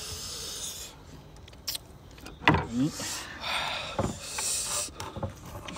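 Eating noises at close range: a few sharp clicks and short hissing mouth sounds, with a brief low hum in between.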